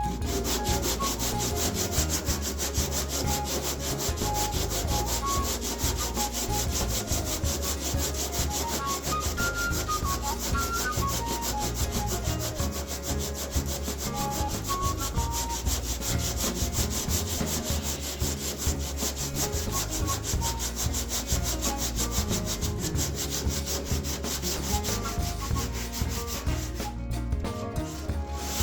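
Hand sanding block with sandpaper rubbing back and forth over a car's epoxy-primed body panel, a steady run of rapid scraping strokes.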